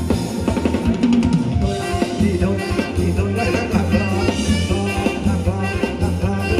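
Live band playing Thai ramwong dance music, the drum kit and bass keeping a steady beat.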